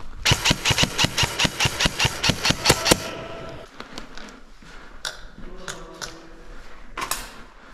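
Airsoft rifle firing a rapid string of shots, about five a second for roughly three seconds, followed by quieter scattered shots and a short burst near the end.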